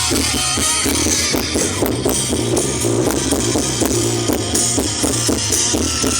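Music with guitar and drums playing loud through a car stereo, a 1-DIN head unit with an added subwoofer, with a heavy, steady bass, picked up by a phone microphone inside the car.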